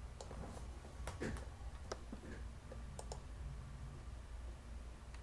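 A handful of light, sharp clicks at irregular intervals over a steady low hum.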